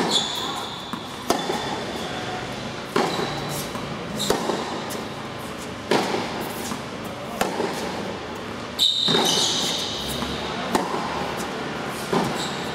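Tennis rally on an indoor hard court: sharp pops of the ball off the rackets and off the court about every one and a half seconds, echoing in the hall. Short high squeaks of shoes on the court come in between, loudest about nine seconds in.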